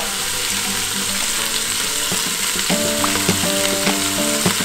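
Beef rib pieces searing in hot olive oil in a pressure cooker pot: a steady, even sizzle as the meat browns.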